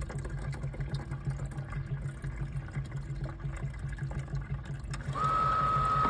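Hot water being poured into a furnace condensate pump's reservoir. About five seconds in, the pump's motor switches on with a steady high whine as the rising water lifts its float.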